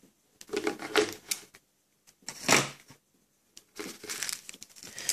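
Small plastic tubes and paper packets being gathered up and slid across a wooden tabletop by hand, clattering and rustling in three short bursts.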